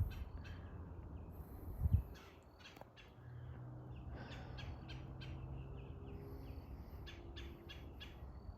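Birds calling in short, scattered notes, with a brief low thump about two seconds in and a faint low hum in the middle.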